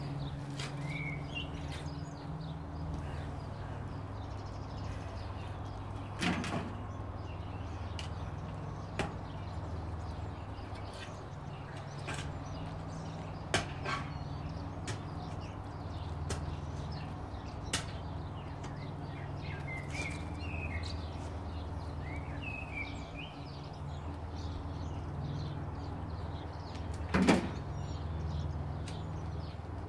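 Outdoor garden ambience: a steady low hum, with birds chirping briefly now and then and a few sharp knocks, the loudest one near the end.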